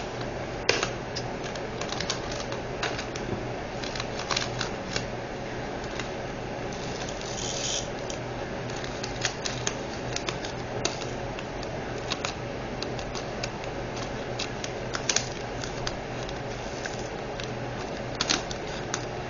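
Scattered light clicks and taps of small plastic items being handled: diamond painting drills and storage containers being sorted during a kit-up. A faint steady hum runs underneath.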